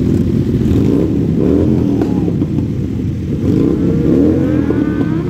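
Several motorcycle engines running close by, idling with throttle blips that rise and fall in pitch.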